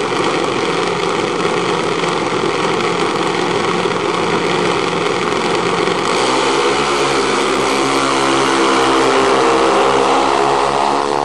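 Junior dragster single-cylinder engines running at the starting line. About six seconds in, one engine's note comes up louder and clearer and rises in pitch as it accelerates.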